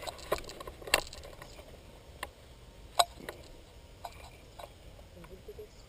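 A few scattered short clicks and knocks over a quiet background, the sharpest about three seconds in.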